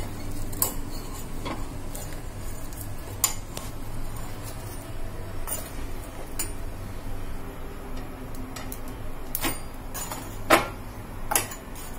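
Scattered light clicks and taps of a spatula and the flatbread knocking against a gas stove's burner grate as a puffed bajra bhakri is turned over the open flame, the loudest tap about ten and a half seconds in, over a low steady hum.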